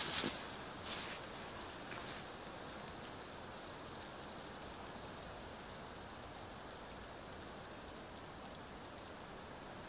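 A steady, even hiss, with a few brief taps or crackles in the first two seconds.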